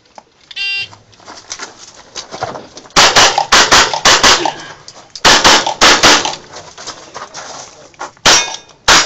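Rapid pistol fire from a handgun, in three strings of shots: about half a dozen in quick succession, then about four, then two.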